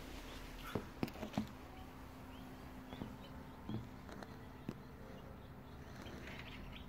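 Newly hatched chicks peeping faintly over a steady low hum, with a few sharp knocks about a second in.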